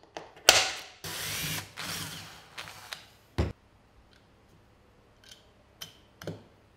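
Small screws being driven by hand with a screwdriver through a brass hinge into wood: scraping, grinding turns in the first two seconds or so, then a sharp knock about three and a half seconds in. A couple of light clicks near the end as the hinge is worked.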